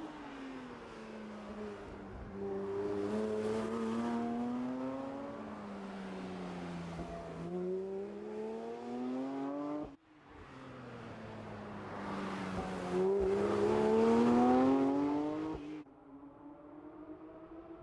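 Porsche 911 GT3 S/C's naturally aspirated 4.0-litre flat-six on the move, its note sinking and climbing with the throttle. It climbs twice to a higher pitch, the second time loudest, and drops away suddenly near the end as the throttle is lifted.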